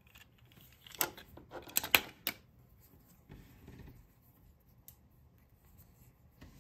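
Handling noise from unboxing a toy: a run of sharp clicks and crackles from about one to two and a half seconds in, the loudest near the two-second mark, then fainter scattered handling sounds.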